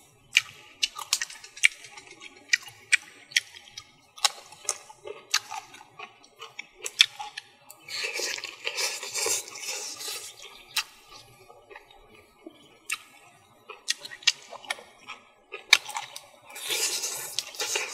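Close-up eating sounds: a string of wet mouth smacks and clicks while chewing, and two longer slurps as a spoonful of fish goes into the mouth, about eight seconds in and again near the end.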